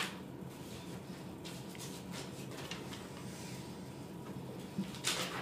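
Paper cutouts being slid and handled on a stack of drawings: faint rustles and light taps over a steady low hum, with a louder brief rustle about five seconds in.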